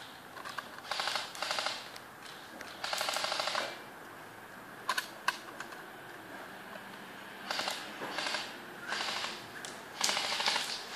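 Airsoft guns firing short full-auto bursts: about seven bursts of rapid, evenly spaced clicks, each under a second long, with two single sharp shots about halfway through.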